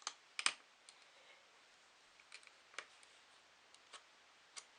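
Faint, scattered clicks and taps of a screwdriver and small laptop screws being handled while the screen screws are taken out, with a sharper double click about half a second in and a few lighter ticks after.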